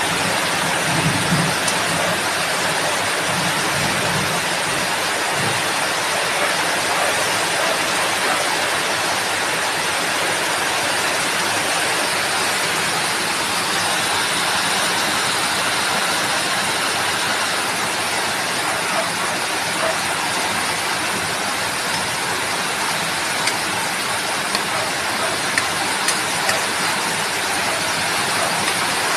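Sardines in tomato sauce sizzling and simmering in a hot wok, a steady hiss, with a few light clicks of the ladle near the end.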